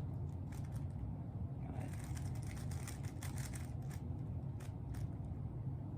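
Plastic Rubik's cube being turned: a few scattered clicks of single turns, then a quick run of turns for about two seconds in the middle, over a steady low hum.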